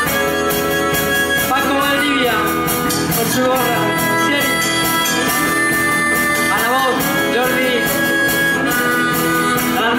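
A blues band playing live, electric guitars over drums, in an instrumental passage with a lead line repeatedly bending in pitch.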